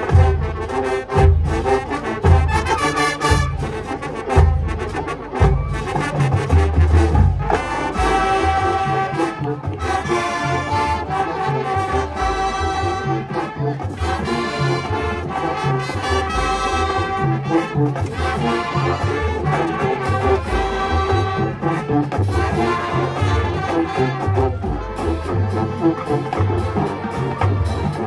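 High school marching band playing a pop arrangement on the field: the brass section plays sustained chords and melody over a steady beat of bass drums and percussion.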